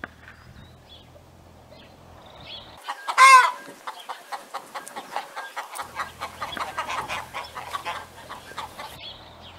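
Hens clucking: one loud squawk about three seconds in, then a quick run of short clucks, about five a second, for several seconds.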